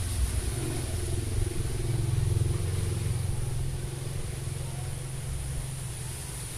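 A motor vehicle engine running steadily, with the low rumble of strong wind on the microphone.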